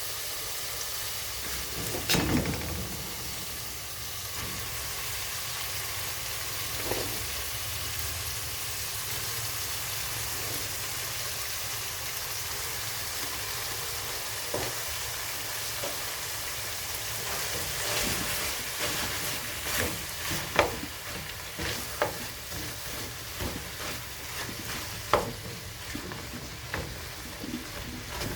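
Meat sizzling steadily in a pan, with knocks and scrapes of a spoon stirring against the pan: one loud clatter about two seconds in, and frequent knocks through the last ten seconds.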